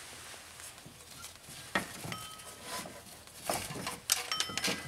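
Faint scattered clicks and taps of parts and tools being handled, with a couple of brief faint high squeaks.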